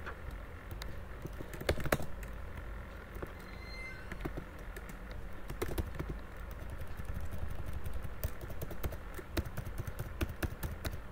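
Computer keyboard keys tapped in quick, irregular clicks, denser near the end, over a low steady hum.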